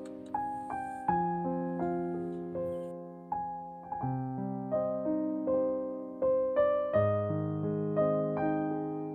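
Slow background piano music: separate notes struck a few times a second and left to die away.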